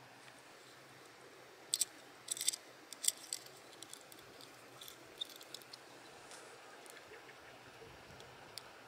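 Light clicks and metallic clinks of a fishing lure being handled in the hands: treble hooks and split rings tapping against each other and the hard plastic body. They come in a few quick clusters in the first half, then as scattered small ticks over a faint steady hiss.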